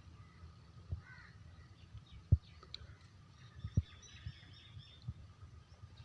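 Birds calling in short chirps and caws, with a few sharp low thumps, the loudest a little over two seconds in.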